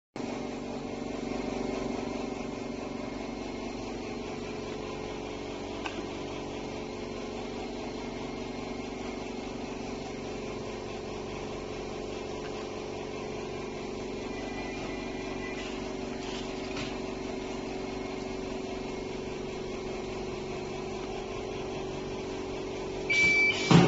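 Automatic checkweigher's belt-conveyor motors running with a steady hum. Near the end a short high beep sounds, then a loud sharp knock as the reject mechanism pushes the box off the line into the reject bin.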